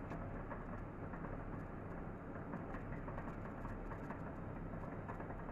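Water bath in a stainless steel pot heating toward a simmer around glass jars: a steady low rumble of water starting to bubble.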